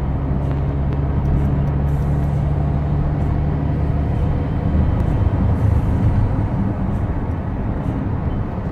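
Car cabin noise at highway speed: a steady low engine hum and tyre rumble heard from inside the moving car.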